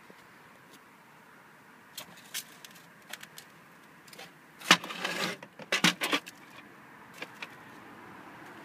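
A carbon-fibre drone frame being handled on a digital kitchen scale: a few light clicks, then a cluster of knocks and rattles about five to six seconds in, and two more ticks near the end.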